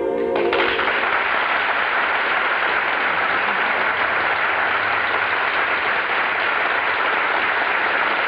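An orchestral number ends about half a second in, and an audience applauds steadily after it.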